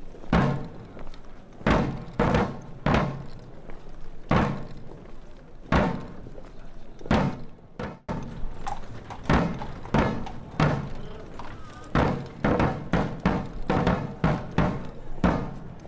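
Background music with a hard-hitting drum beat, the hits coming faster in the second half.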